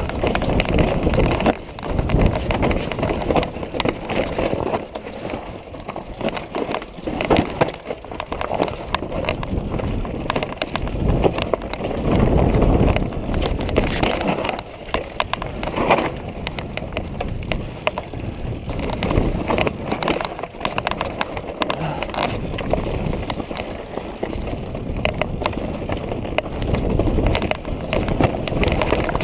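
Orbea mountain bike descending a rocky trail: tyres and bike clatter over the rocks in a constant, irregular stream of knocks and rattles, with a few louder strikes.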